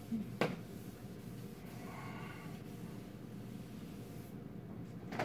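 Felt chalkboard eraser rubbing across a blackboard, wiping off chalk, with a short sharp noise about half a second in and another at the end.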